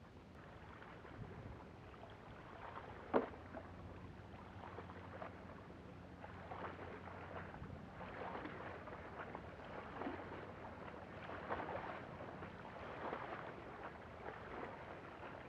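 Small waves lapping and washing over the rocks at the water's edge, a faint irregular splashing and trickling, with one sharp click about three seconds in.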